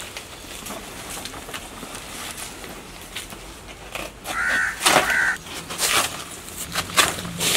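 A crow cawing twice about halfway through, over the rustle and several sharp rips and snaps of banana leaves being cut from the plant with a knife.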